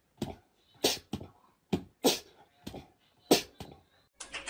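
A corgi giving a string of short barks, about eight in irregular succession with brief gaps between them.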